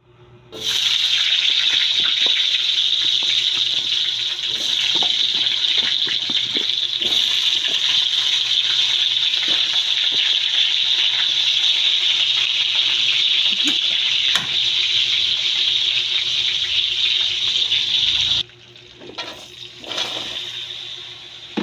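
Steady loud sizzle of food frying in hot oil in a pan. It cuts off suddenly about 18 seconds in, leaving quieter scattered clatter.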